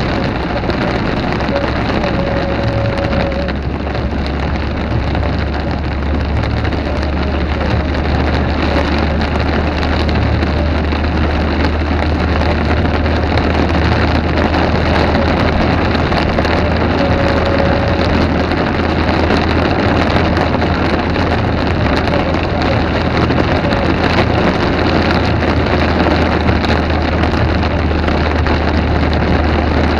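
Heavy rain falling steadily in a thunderstorm, with a constant low rumble underneath.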